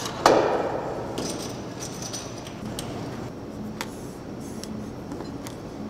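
A sharp knock about a quarter second in, then scattered light clinks and taps of small hard objects.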